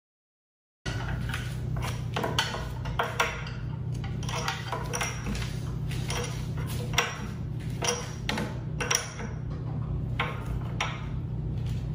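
Irregular sharp metallic clicks and clinks of a hand tool and pedal against the exercise bike's crank arm as a pedal is threaded on and tightened, starting about a second in, over a steady low hum.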